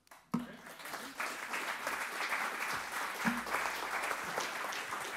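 Audience applause: clapping starts about a third of a second in and builds to steady, dense clapping about a second later.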